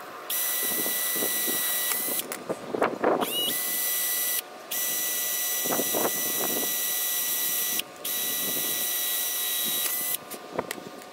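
Cordless drill running in several spells with brief pauses, its bit grinding and scraping as it bores guide holes through the metal plate of a clutch pedal assembly bracket. The drill stops near the end, leaving a few clicks.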